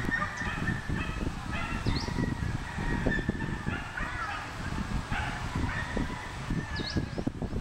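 Roosters crowing and other domestic fowl calling, with a few quick high bird chirps, over a low rumble.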